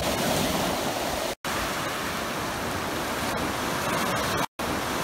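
Small waves breaking and washing in over shallow water on a sandy beach, a steady rush of surf. The sound drops out completely twice, briefly, about a second and a half in and near the end.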